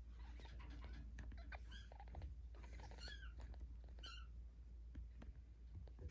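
A very young kitten giving three faint, high mews about a second apart, over the soft rustle of a fleece blanket as it is stroked.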